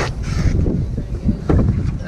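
Wind buffeting the microphone, with two short knocks, one at the start and one about a second and a half in, from hand work on the rear strut and its mount.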